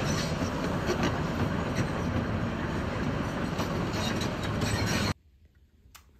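Tracked hydraulic excavator working: a steady, dense noise of engine and machinery that cuts off abruptly about five seconds in, followed by a few faint clicks.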